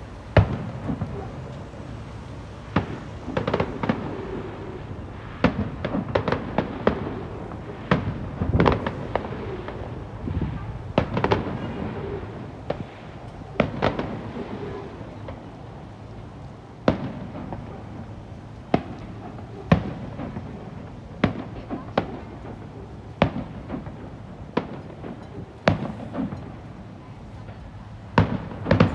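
Aerial fireworks display: shells bursting in a string of sharp bangs, each with a rumbling echo. The bangs come thick and overlapping through the first half, then one at a time about every second or two.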